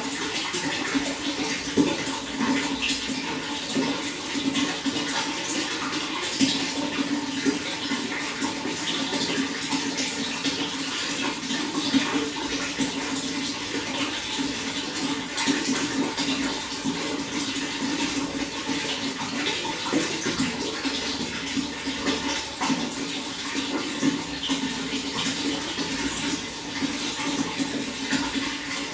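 Running water flowing steadily, a continuous rush broken by many small splashes.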